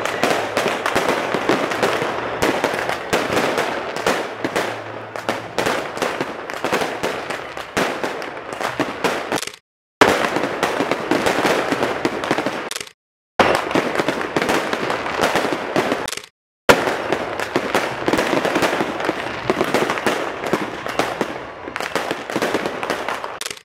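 New Year's fireworks going off, a dense, rapid crackle of overlapping bangs and pops. The sound cuts out completely for moments about ten, thirteen and sixteen seconds in.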